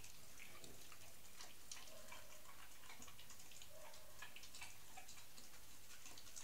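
American Pit Bull Terrier puppy chewing its food, a faint run of small, irregular crunching clicks.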